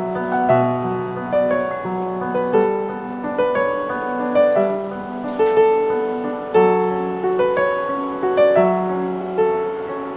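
Background piano music with a slow melody of single notes over held low notes.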